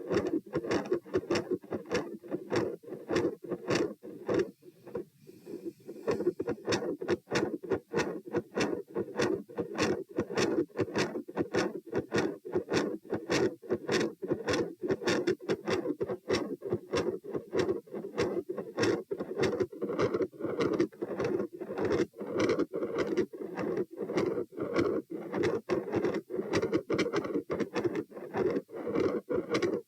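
Human heartbeat heard through a stethoscope at the pulmonic area: rapid, regular lub-dub heart sounds with a murmur behind them. The beats weaken briefly about five seconds in, then carry on.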